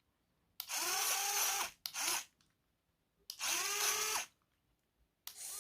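Small electric motor whirring in four short bursts, each quickly rising in pitch as it spins up and then holding steady before cutting off; the second burst is brief.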